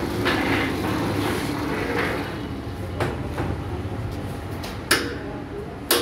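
Masking tape slicing machine running, its 1 hp single-phase motor humming steadily as it spins the tape roll. A scraping swish of cutting in the first two seconds, then three sharp metal clacks about 3, 5 and 6 seconds in from the hand-pressed cutter carriage on its rack.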